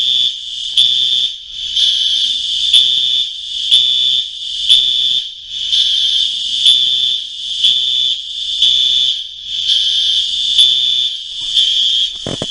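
Building fire alarm sounding: a loud, high electronic tone that pulses on and off about once a second.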